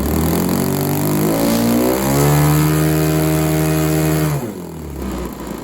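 Model airplane engine with its propeller revving up over about two seconds, holding high revs, then dropping back quickly near the end.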